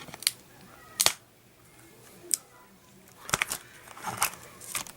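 Small scissors snipping and clicking at the security tape on a plastic Blu-ray case: a scatter of short, sharp snips, the loudest about a second in and several close together near the middle.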